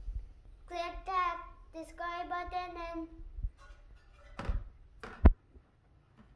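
A boy's voice in drawn-out, sing-song phrases, then two short sharp knocks, the second one loud.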